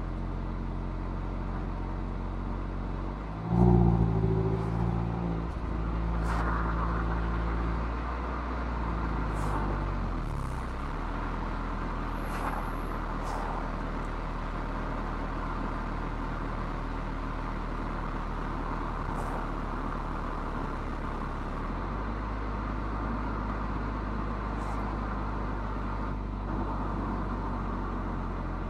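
Mazda MX-5's four-cylinder engine and stock exhaust on the move, with road noise. About three and a half seconds in, the throttle opens and the exhaust note jumps in level for a few seconds. Its pitch shifts around eight to ten seconds in, and it settles back to a steady cruising drone.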